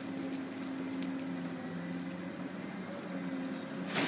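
Large Caterpillar hydraulic excavator's diesel engine running steadily as it digs, its hum shifting slightly in pitch with the load. A brief loud noisy burst comes right at the end.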